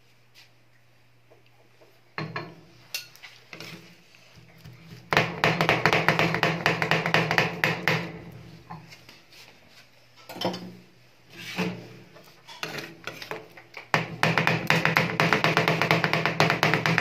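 Two metal spatulas chopping rapidly on the steel cold plate of a rolled-ice-cream machine, cutting banana into the cream base. The fast clattering strikes ring on the metal and come in long runs with pauses, beginning about two seconds in.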